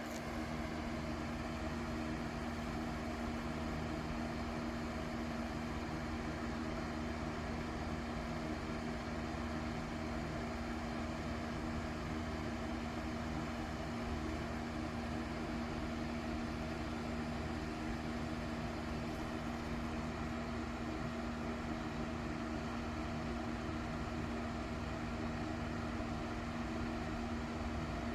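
Vapor polishing machine running with a steady, even hum.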